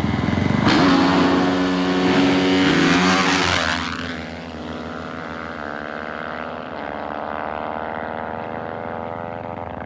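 Two dirt bikes launching hard about a second in, their engines revving higher and higher under full throttle. The sound drops away after about four seconds as they pull off down the road, the engine notes still climbing.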